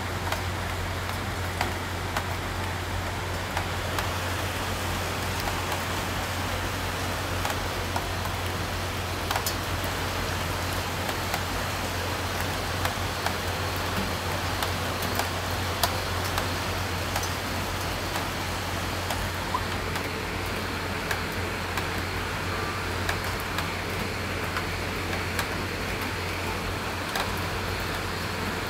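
Steady rain falling, with scattered drops ticking sharply on a nearby surface, over a constant low rumble.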